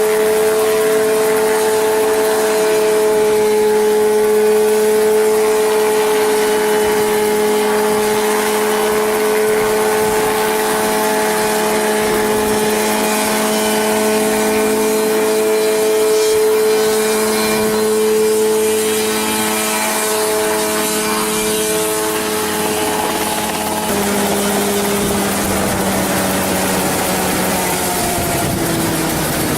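Ultralight helicopter engine running at a steady pitch with a strong droning tone. About 24 seconds in the pitch drops a little, and near the end it falls away steadily as the engine slows down.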